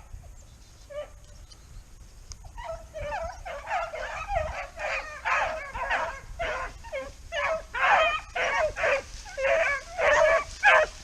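A pack of rabbit-hunting dogs baying on a cottontail's trail, a few scattered calls at first, then a steady run of voices from about two and a half seconds in, growing louder toward the end.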